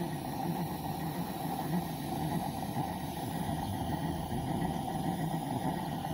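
Butane-fired live-steam garden-scale locomotive running steadily on rollers, an even, unbroken sound of engine and burner.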